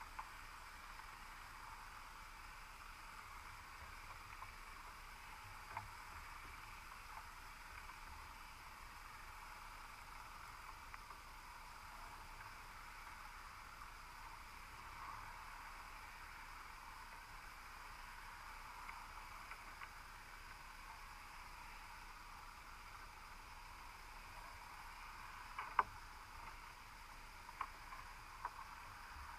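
Faint steady underwater hiss picked up through a sealed camera housing on the seabed, with a few isolated sharp clicks, most of them near the end.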